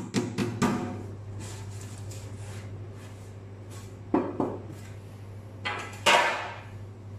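Aluminium baking tray knocked and tapped as dry ground nuts and powdered sugar are shaken out of it onto a steel work table, with a few sharp knocks in the first second, more about four seconds in, and a louder metallic clatter about six seconds in as the tray is put aside. A steady low hum runs underneath.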